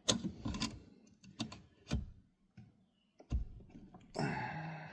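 Scattered sharp clicks and taps of a small metal spring clip being handled and pushed against the steering-column mounting. Near the end comes a short sustained sound with a low steady pitch, like a strained murmur.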